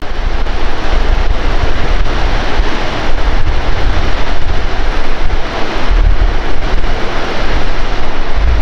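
Water rushing down a concrete dam spillway and over rocks, a loud steady rush, with wind buffeting the microphone.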